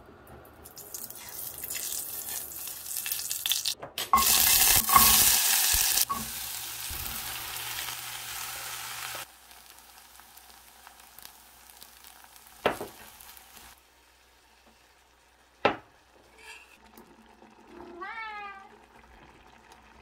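Food sizzling and frying in a stainless-steel pot. The hiss builds over the first few seconds, is loudest for about two seconds around four seconds in, and cuts off suddenly just past the middle. Afterwards it is much quieter, with two sharp clinks of a metal spoon on the pot and a brief squeaky chirping sound near the end.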